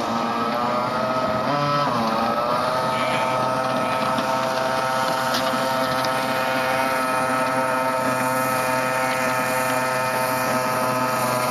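Car engine running hard at high revs on an autocross course. The pitch dips briefly and comes back up about two seconds in, then holds steady, with wind noise underneath.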